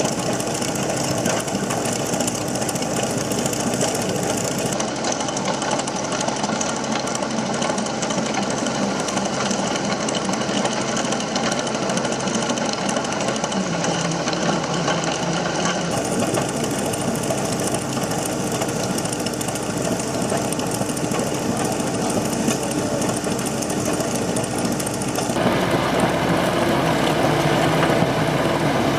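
Excavator-mounted chain trencher running: a steady, dense mechanical rattle of the digging chain with machine engine noise beneath. The sound changes character abruptly three times.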